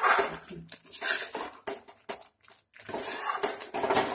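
Metal ladle scraping and stirring thick pineapple halwa in an aluminium kadhai, in irregular strokes with a short pause about halfway. The halwa is being roasted until it thickens and leaves the sides of the pan.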